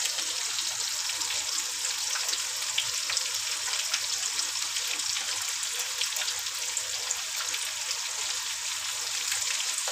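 Masala-coated fish pieces shallow-frying in hot oil in a non-stick kadai, still on their first side: a steady sizzle dotted with small pops and crackles.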